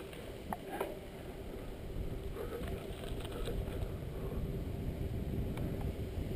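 Mountain bike rolling downhill on a gravel path: steady tyre and wind noise with a faint steady hum, and a few small clicks from the bike, near the start and again near the end.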